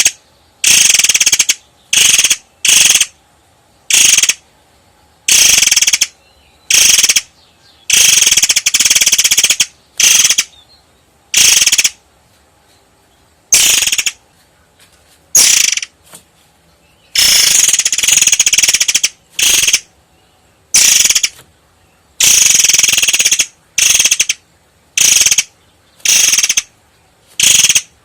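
Long-tailed sibia (murai air) singing: about twenty dense, sharp, high-pitched rattling phrases, each a fraction of a second to nearly two seconds long, with short pauses between them.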